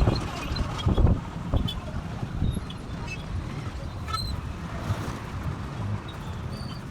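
Wind buffeting the microphone, a gusty low rumble that is strongest in the first second or so and then settles, over faint outdoor background with a few small high ticks.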